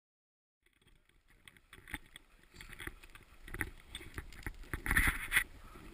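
Divers' gear being handled beside a car: irregular clicks, knocks and rustling that start after about half a second of silence and grow louder, loudest about five seconds in.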